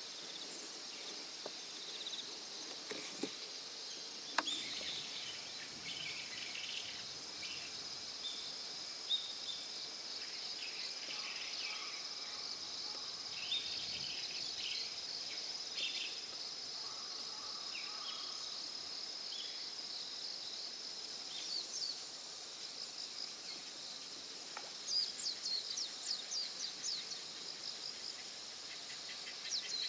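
Outdoor insect chorus: a steady high-pitched shrill of singing insects, with scattered short chirps over it and a quick run of chirps near the end.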